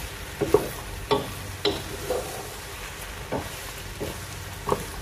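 Wooden spoon stirring penne pasta in tomato sauce in a nonstick pot, with soft knocks and scrapes against the pan at irregular intervals of roughly half a second to a second, over a faint sizzle from the pan.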